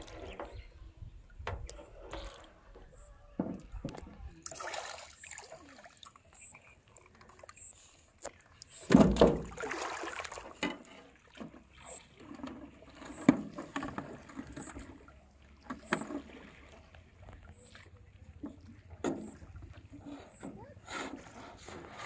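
Small metal boat on a pond: water sloshing and splashing with scattered knocks and bumps, and a louder burst of noise about nine seconds in. A faint high peep repeats about once a second through the middle.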